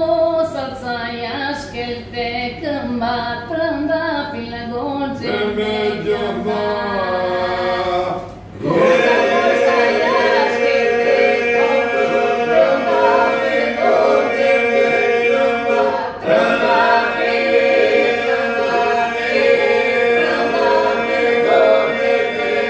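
Unaccompanied Albanian polyphonic folk singing. A woman sings the lead line alone for about eight seconds. After a brief pause the group comes in beneath her with a held drone, and the voices carry on together, fuller and louder.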